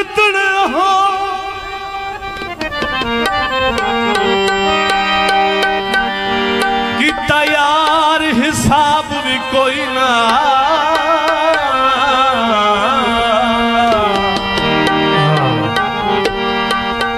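Live folk music: a harmonium holding steady chords under tabla strokes, joined from about seven seconds in by a male voice singing long, ornamented notes with heavy vibrato.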